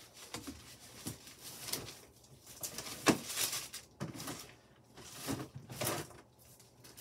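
Rummaging through craft supplies: irregular knocks and rustles of bottles and objects being moved while searching, the loudest knock about three seconds in.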